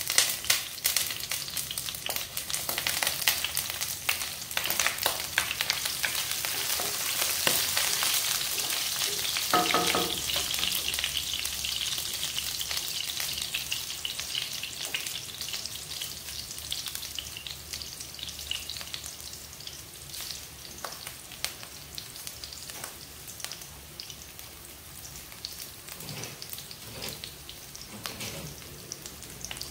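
Ginger and sliced onion frying in hot oil in a wok: a steady sizzle with many small pops and crackles, loudest in the first third and slowly dying down as the oil settles.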